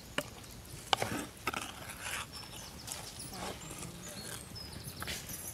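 Wooden spatula knocking and scraping against an earthenware pot while stirring goat blood in hot water, with a few sharp knocks, the loudest about a second in.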